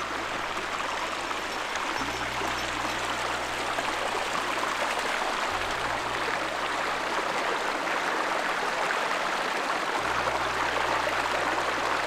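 Small, shallow mountain stream running steadily over stones.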